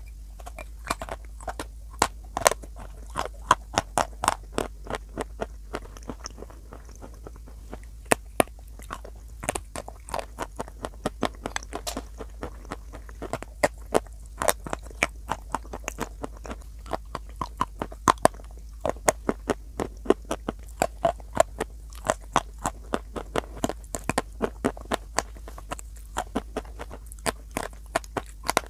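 A chalk bar being bitten and chewed: a sharp crunch of a bite at the start, then a dense run of crisp crunches, several a second, as the chalk breaks up between the teeth.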